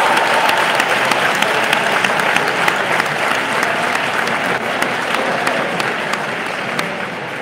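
Crowd of spectators applauding, many hands clapping together, slowly dying away.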